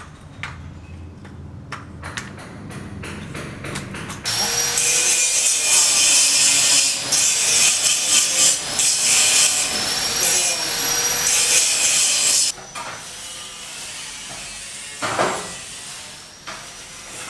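A power saw cutting for about eight seconds, a loud high-pitched rasp that starts about four seconds in and stops suddenly, after a run of sharp taps.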